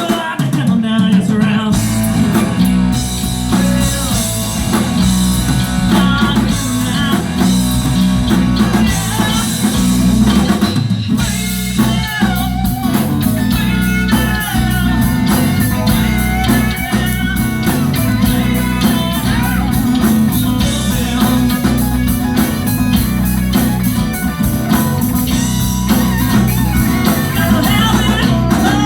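A live rock band playing loud and steady, with electric guitar lines bending and gliding over bass and drum kit.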